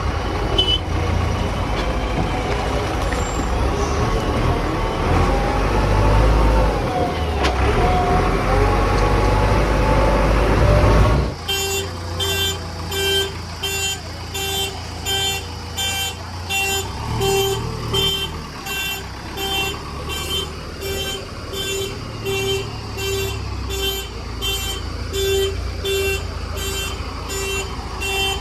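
Heavy diesel vehicle engine running with a strong low rumble and shifting pitch. About eleven seconds in, the sound changes abruptly to a steady beeping, about two beeps a second on one pitch, like a reversing alarm, over the engine running more quietly.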